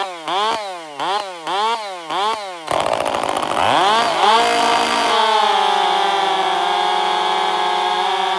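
Chainsaw engine revved in about five quick blips, then held at full throttle. About two and a half seconds in it drops in pitch, as when the chain bites into wood, climbs back, and runs at a steady high pitch for the rest of the time, as it does while cutting.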